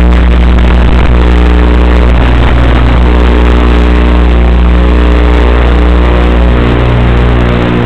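Electric motors and propellers of an FPV aircraft in flight, a loud steady hum whose pitch shifts a little as the throttle changes.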